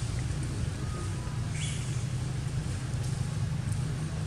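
Steady low rumble of a running engine, with a brief high squeak about one and a half seconds in.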